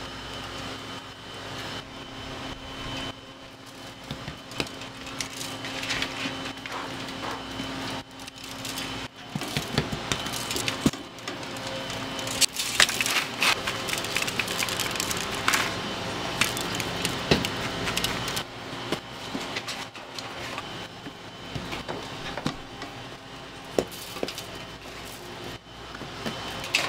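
Bakery work noise: irregular clicks, knocks and clatter of handling, denser from about nine seconds in, over a steady hum that fades after the first eight seconds.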